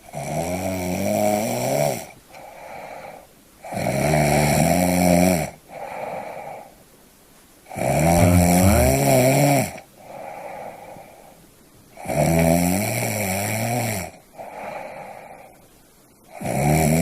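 Snoring: five loud snores about four seconds apart, each followed by a shorter, quieter breath sound.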